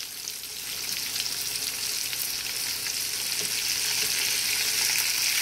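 Potato-flake-coated cutlets frying in shallow oil, with a steady high sizzle that slowly grows louder as a spatula is worked into the pan to turn them. The oil is on a flame she says was too high, scorching the coating.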